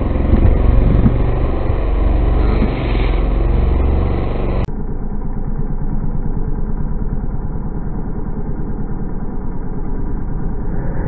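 Off-road motorcycle engine running and revving close by as it throws up mud. About five seconds in, the sound cuts abruptly to a duller, lower engine sound with an even pulsing.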